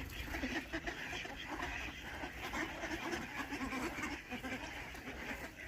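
A flock of domestic ducks quacking and chattering, many short calls overlapping without a break.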